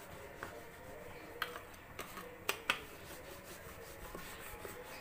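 Rolling pin rolling out a small ball of dough into a long strip: faint rubbing, with a few light clicks, one about a second and a half in and two close together past the middle.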